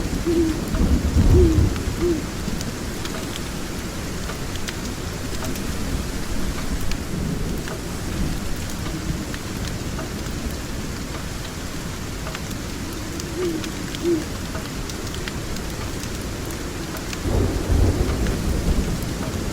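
Steady rainfall with rolling thunder: one low rumble about a second in and another near the end.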